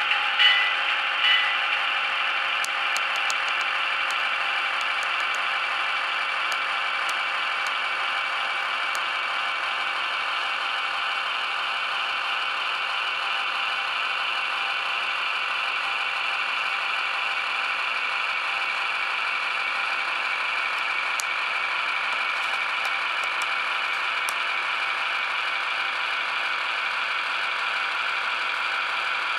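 HO scale model of a CSX MP15 switcher locomotive running along the layout track, a steady whirring, rattling mechanical sound with no deep bass. A few evenly spaced ringing strikes die away in the first second and a half, and faint clicks come here and there.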